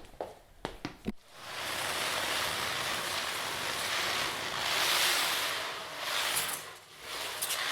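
A few quick taps, then a rushing hiss that swells and eases off like surf, with a louder swell about five seconds in and another near the end.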